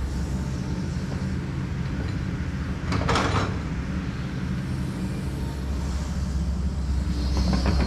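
Excavator's diesel engine running steadily, with a short burst of rushing noise about three seconds in.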